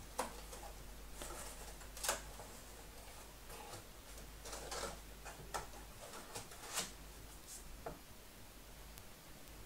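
Faint, scattered light clicks and brief rustles of small hand tools, such as tweezers and a soldering iron, handled on a workbench during fine soldering work.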